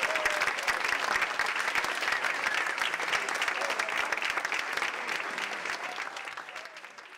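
Audience applauding a children's chorus, with a brief voice calling out near the start; the clapping fades away over the last couple of seconds.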